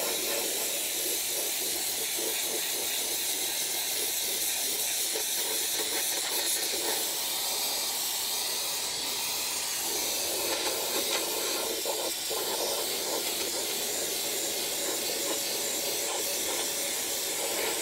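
Pressure washer with a dustless sand-blasting adapter spraying water and sand onto a steel truck frame: a steady, loud hiss of wet sandblasting, stripping rust and coating down to bare metal.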